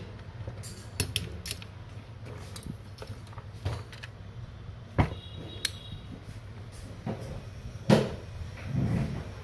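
Handling noise: scattered light clicks and knocks from a plastic-housed circuit board and multimeter probes being moved and set against it, over a steady low hum.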